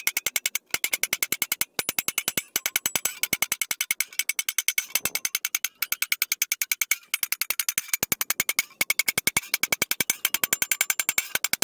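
Rapid peen-hammer blows on a steel circular-saw blade resting on a brake drum, about seven strikes a second with a few short breaks, each blow with a bright metallic ring. The blade is being hammer-formed into a bell cymbal. It is kind of loud.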